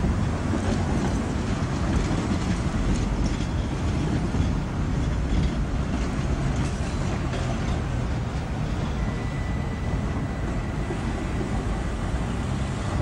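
Tatra KTNF6 articulated tram (a rebuilt KT4) running past on its rails: a steady rumble with scattered light rail clicks, easing off slightly as it moves away.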